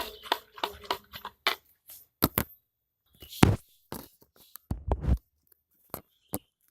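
Irregular short clicks, taps and small scrapes from slime-making materials being handled by hand, about a dozen scattered sounds with a few dull thuds among them.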